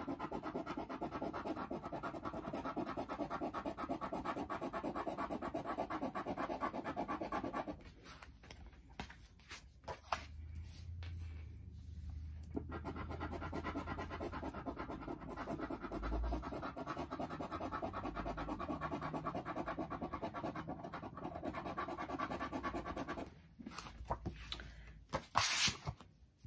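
A round scratcher scraping the coating off a lottery scratch-off ticket in fast, steady strokes, stopping for a few seconds about eight seconds in and then going on. Near the end come a few knocks and a short loud rustle as the ticket is handled.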